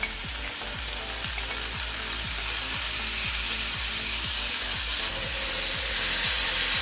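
Cubed, marinated rib eye steak sizzling as it is dropped into hot butter in a cast iron skillet. The sizzle grows louder as more pieces go in and are spread out with chopsticks. A faint, regular ticking runs underneath at about three a second.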